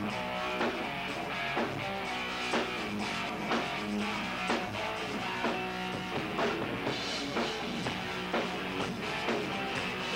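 Rock band playing live: electric guitars and a drum kit, with a drum beat standing out about once a second.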